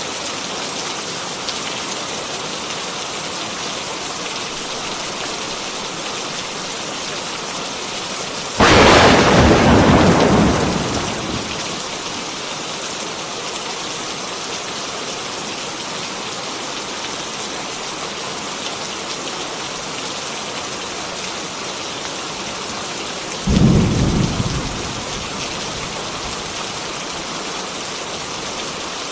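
Steady heavy rain pouring down, broken by two claps of thunder: a loud sharp crack about nine seconds in that rumbles away over a few seconds, and a shorter, deeper clap near the end.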